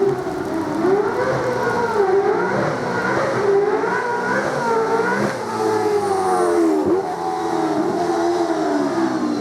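Flat-plane-crank 5.0-litre Mercedes-Benz M159-based V8 of a V8 Supercar running hard, its note climbing and dropping again and again, with a sudden dip about seven seconds in and the pitch falling away near the end.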